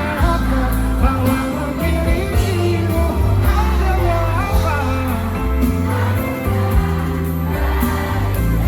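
Live pop band playing a ballad with sung vocals over it and a strong, steady bass.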